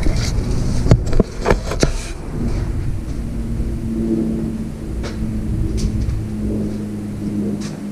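A motor running steadily with a low rumble and a steady hum, cutting off sharply at the very end, with a few sharp clicks in the first two seconds.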